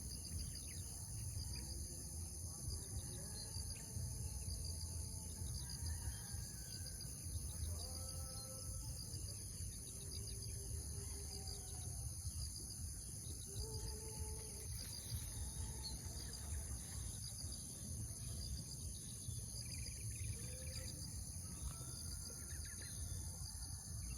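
Steady high-pitched insect chorus that runs without a break, with scattered short bird calls over a constant low rumble.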